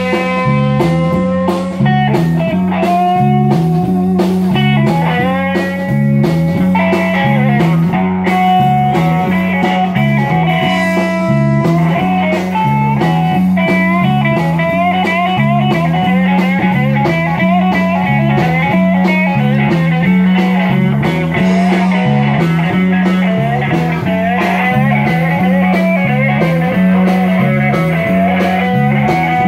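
Live blues-rock band playing: an electric guitar lead with bending, sliding notes over a repeating bass line and a steady beat.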